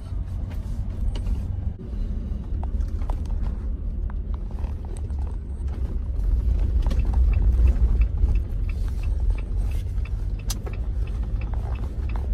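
Car driving slowly, heard from inside the cabin: a steady low rumble of engine and tyres that grows a little louder around the middle. In the second half, a regular light ticking comes in at about two to three ticks a second.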